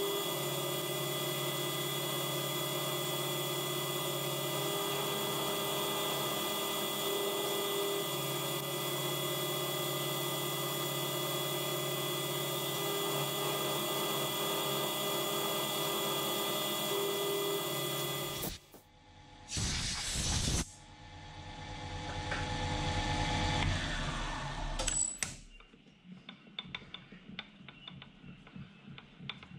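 Mill-drill spindle running steadily, cutting graduation lines into an aluminium ring with a small end mill, then switched off sharply about two-thirds of the way through. A short burst of running follows, then a swell that rises and dies away, and faint ticking near the end.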